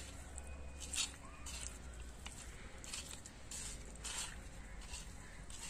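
Raw pieces of kuche fish (mud eel) squishing and rubbing against an earthenware bowl as hands mix them with salt and turmeric: a series of short, soft, wet squelches about once a second.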